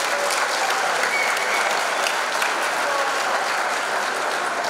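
Large crowd in a sports hall applauding, with scattered shouts over the clapping.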